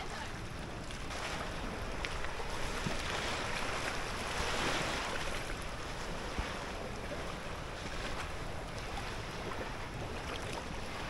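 Steady wind and water noise, with wind rushing on the microphone over lapping lake water. It swells for a few seconds around the middle.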